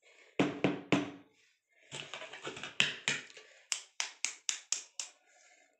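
An eggshell being tapped with a hand-held kitchen utensil to crack it open. There are sharp taps throughout, ending in a quick run of about six at roughly four a second.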